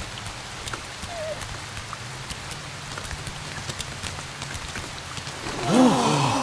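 Steady rain falling on pavement, with scattered individual drops ticking, over a low steady hum. Near the end, a short loud call that falls in pitch.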